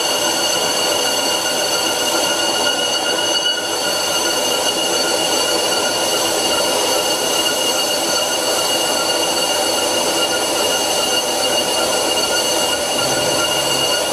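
Old bench lathe facing a cast-iron brake disc with a carbide insert at about 153 RPM. A steady, high-pitched ringing tone with overtones runs over a rough, continuous cutting noise: the chatter and rumbling the tool has been fighting on this disc.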